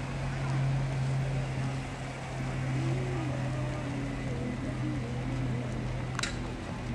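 Street ambience: a steady low engine-like hum under general traffic noise, with faint voices and a car driving past. A single sharp click about six seconds in.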